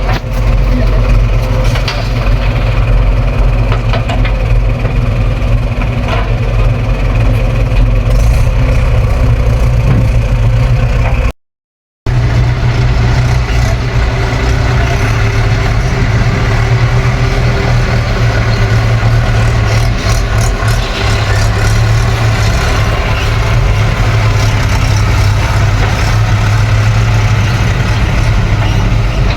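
Heavy diesel engines of an excavator and tractors running steadily with a deep hum. The sound drops out completely for under a second about eleven seconds in.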